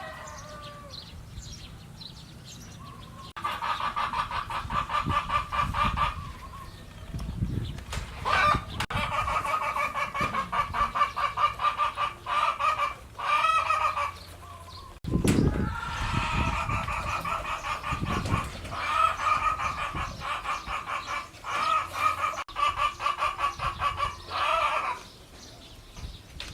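Farm animals calling in long bouts of rapid, pulsing calls, with a few low thumps in between.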